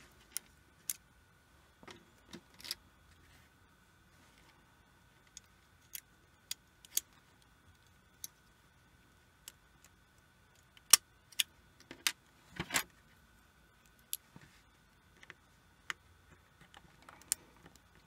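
Scattered small clicks and taps of fingers and a thin metal pick working the ribbon-cable connectors inside a small projector, with a cluster of sharper clicks about eleven to thirteen seconds in.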